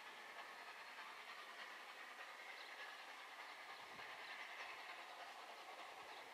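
Faint, distant sound of an LNER A4 Pacific three-cylinder steam locomotive approaching under steam, a steady noise with a few faint low thuds from about four seconds in.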